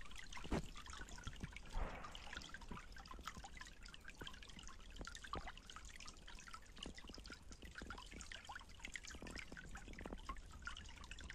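Shallow water trickling and gurgling down a narrow earth-banked channel, a steady fine patter of small ripples and plops, with a low thump about half a second in.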